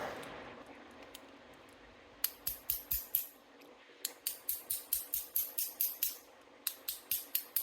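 Runs of quick, light metallic taps, about four to five a second with short pauses between runs: a bump key being struck in the Britanium monoblock lock to try to bump it open.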